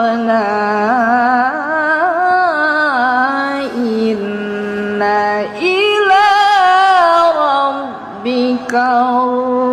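A woman reciting the Quran in melodic tilawah style, unaccompanied, with long held notes and wavering ornaments. About five and a half seconds in her voice leaps higher and then slowly descends, with a short pause for breath near eight seconds.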